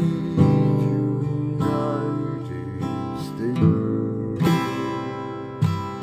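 Acoustic guitar strummed, ringing chords with a new stroke about every second.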